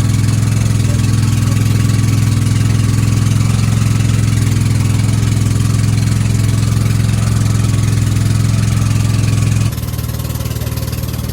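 An engine running steadily with a low, even hum, dropping abruptly in loudness near the end.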